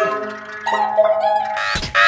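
Music: an effects-altered variation of a cartoon jingle, with short pitched notes and held, wavering tones, broken briefly just before the end.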